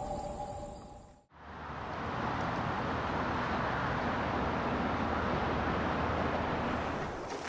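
The intro's tones fade out to a moment of silence. About a second and a half in, a steady outdoor rush of noise with a low rumble underneath comes in and holds.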